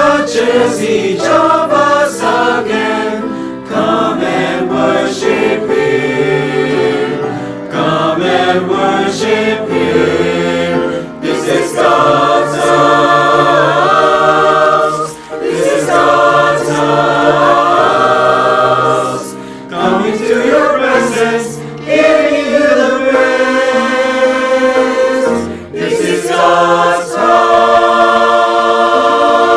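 Church choir singing an anthem in harmony, long held chords with short breaks between phrases.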